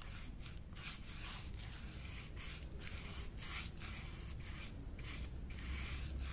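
Repeated scratchy strokes on paper, about two a second, as a sound effect of colouring in, over a faint low hum.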